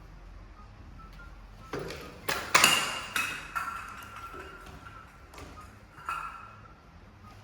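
A quick run of sharp knocks and clinks, each leaving a short ringing tone, loudest about two and a half seconds in, then two lighter clinks near the end, like hard objects struck together.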